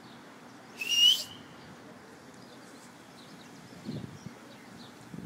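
A person whistling once to call to someone far off: a short, loud rising whistle about a second in. Faint bird chirps follow.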